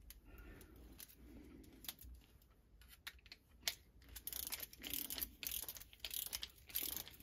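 Faint handling noise of a clock movement while a mainspring clamp is fitted: scattered small metallic clicks and ticks, turning to a denser run of rustling, scraping clicks in the second half.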